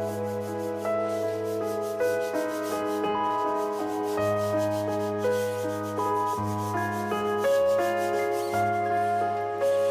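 Soft background music of slow, sustained chords over a low bass note, with a faint rubbing of a paintbrush being stroked across watercolour paper.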